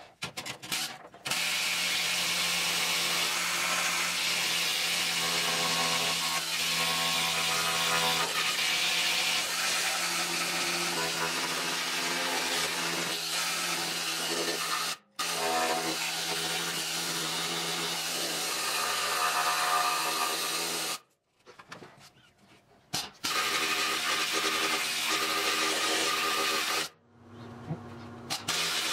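Handheld power rust-removal tool running against the rusty inner wheel-arch sheet metal, stripping it back to clean metal. It is a steady, pitched machine whine with a hiss. It cuts out briefly about halfway, stops for a couple of seconds, then runs again in two more spells.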